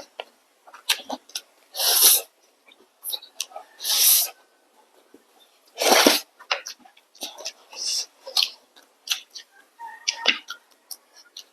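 Noodles slurped and chewed close to the microphone: three loud breathy slurps about two seconds apart, with short wet smacks and clicks of chewing between them.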